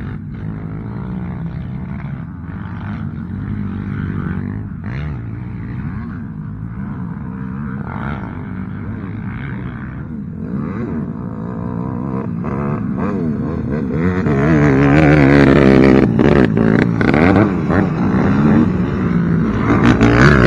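Quad (ATV) engines revving as they race round a dirt track, the pitch rising and falling with the throttle. The engines are fainter at first and grow louder from about twelve seconds in, loudest near the end as a quad passes close by.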